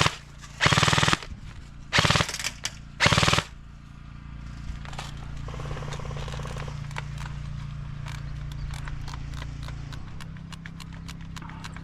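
Airsoft guns firing on full auto: five short, loud bursts within the first three and a half seconds. Then fainter, scattered single shots and ticks that come more often near the end, over a steady low hum.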